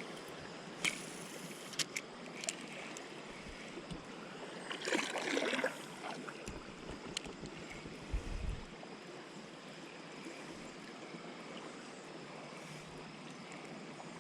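Steady water sounds around a kayak on a river, with a few sharp clicks and knocks early on the hull, a louder splash about five seconds in, and a dull low thump a few seconds later.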